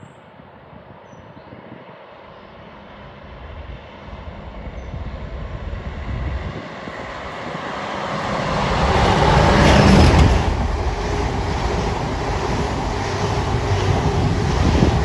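Class 50 diesel locomotive's English Electric 16-cylinder engine growing steadily louder as it approaches hauling a train of coaches. It is loudest as it passes about ten seconds in, followed by the steady run of the coaches over the rails.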